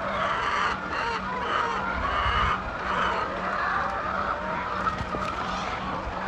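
A flock of hens clucking and calling all at once, many short overlapping calls, over a steady low hum.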